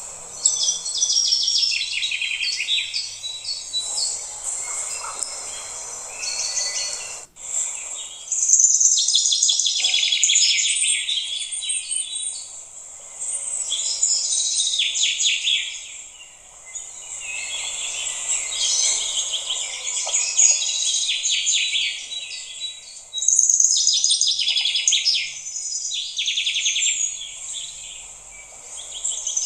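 Birds chirping and trilling in rapid bursts of a few seconds each, over a steady high hiss, with a brief dropout about seven seconds in.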